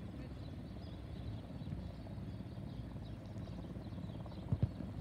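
Outdoor ambience on a sports field: a steady low rumble with faint, distant high-pitched calls, and two short thumps close together near the end.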